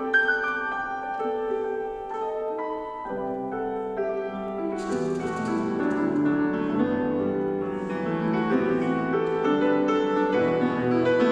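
Grand piano played solo, a melody over chords. About five seconds in, fuller low chords join and the playing grows a little louder.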